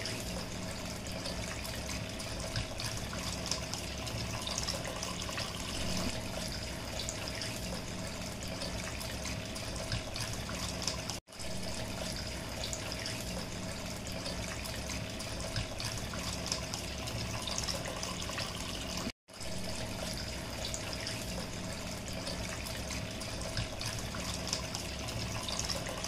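Small cement tabletop fountain running: several thin streams of water falling from the branch tips into a basin and spilling over into a lower bowl, a steady splashing trickle. The sound cuts out for an instant twice.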